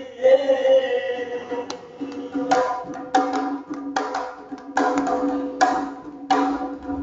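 A man sings a line into a microphone. About two and a half seconds in, a double-headed hand drum starts a steady beat, about one stroke every 0.8 s, each stroke ringing with a low tone.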